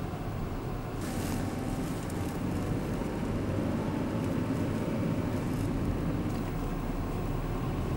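Car driving along a snowy road, heard from inside the cabin: steady engine and tyre noise, with a brief hiss about a second in.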